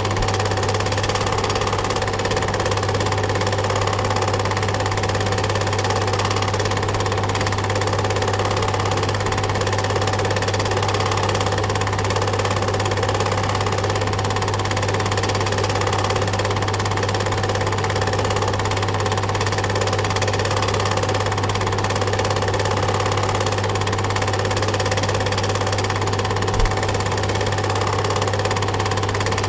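Steady mechanical running noise of a film projector's motor and mechanism, with a strong low hum and one brief click near the end.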